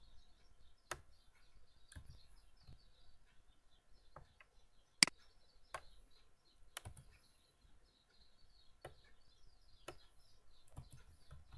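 Scattered computer mouse and keyboard clicks as margin values are entered, about ten in all, the sharpest about five seconds in. Faint bird chirping carries on underneath.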